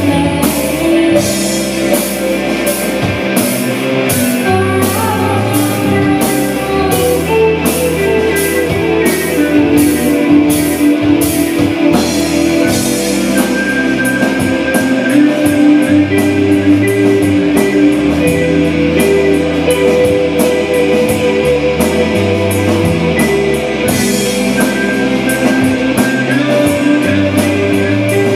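Rock music with electric guitar, bass and a drum kit keeping a steady beat on the cymbals.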